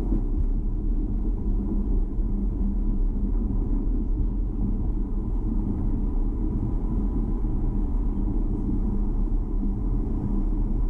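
Car driving at a steady speed: a continuous low rumble of engine and road noise, even throughout with no distinct events.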